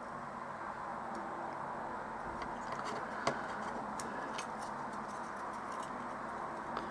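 Faint scattered clicks and ticks of a resistor being fitted into a through-hole circuit board, with one sharper click a little over three seconds in, over a steady low hiss.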